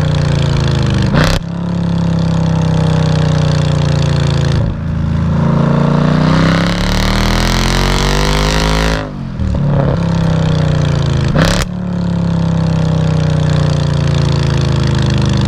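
Mercedes SLK55 AMG's 5.5-litre V8 through a custom valved stainless-steel exhaust, heard at the tailpipes under hard driving. The pitch climbs and drops with the gear changes, and sharp cracks come at two of the shifts, about a second in and near the end.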